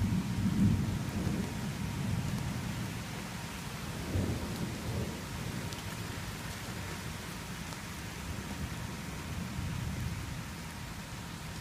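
Thunder rumbling over steady rain. One deep rumble swells right at the start, a second swells about four seconds in, and the rumbling then rolls on more softly.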